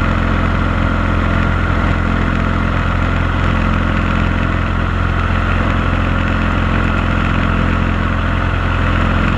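Cessna light aircraft's engine running steadily and loudly with a constant propeller-and-engine tone, heard from inside the cabin.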